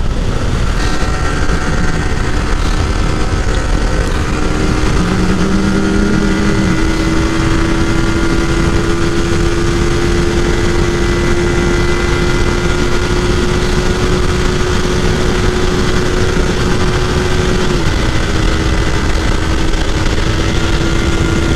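Motorcycle engine running at steady high revs under way, its note climbing slowly as the bike speeds up, then dropping a step near the end, over heavy wind rush. A second, lower engine note sounds briefly about five seconds in.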